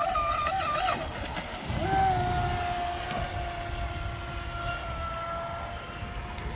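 Pro Boat Sonic Wake RC boat's brushless electric motor whining at speed. The pitch wobbles up and down for about the first second, then jumps up and holds a steady high whine that sinks slowly. Wind rumbles on the microphone underneath.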